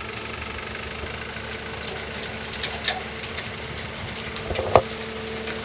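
Truck engine idling steadily, with a few light clicks and one sharp knock near the end.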